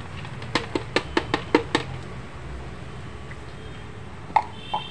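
A metal cup tapped about seven times in quick succession against the rim of a mixer-grinder jar, shaking out the last of the sugar, then one louder knock near the end as the cup is set down on the stone counter.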